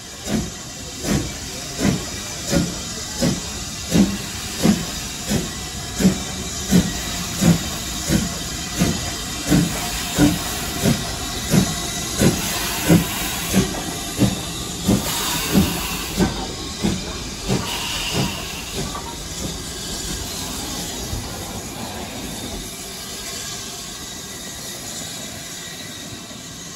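BR Standard Class 9F 2-10-0 steam locomotive working slowly past: even exhaust chuffs about one and a half a second over a hiss of escaping steam. About two-thirds of the way through the chuffs die away, leaving the steady hiss.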